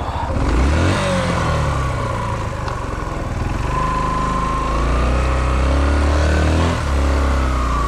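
Dirt bike engine revving hard under load, its pitch rising and falling as the throttle is worked while it is ridden over a rough track.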